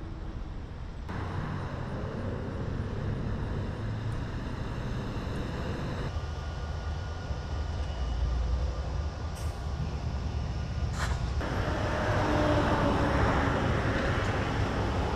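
Canadian Pacific diesel-electric locomotives idling with a steady low engine rumble. There are two short sharp clicks about two-thirds of the way through, and the rumble grows louder near the end.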